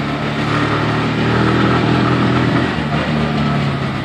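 Auto rickshaw (tuk-tuk) engine running under way, heard from inside the open passenger cabin, its pitch dipping and rising a couple of times as it drives.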